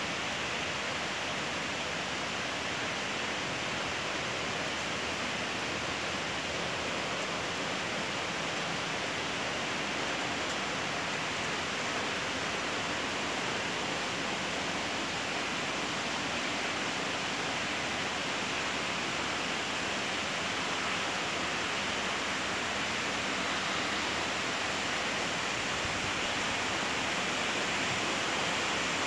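Steady rain falling, an even, unbroken hiss that grows slightly louder near the end.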